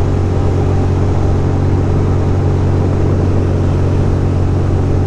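2006 Ducati Monster 620's air-cooled L-twin engine running at a steady pitch while the motorcycle cruises, with a steady rush of wind and road noise.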